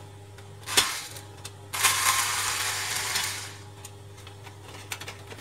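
Hand-tool and handling noise from a laser printer being dismantled: a sharp click about a second in, then a scraping rush lasting a second and a half, and a few small ticks, as a screw is undone and the formatter board is worked loose from the chassis.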